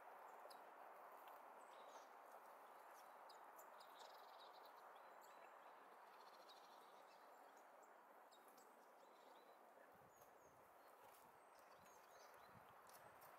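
Faint, scattered high chirps and calls of small birds over a steady low hiss. From about ten seconds in there are a few soft low knocks.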